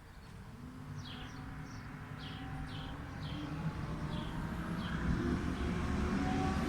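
A bird giving a series of short falling chirps, roughly two a second, over a low mechanical rumble with a steady hum that grows steadily louder, like an approaching vehicle.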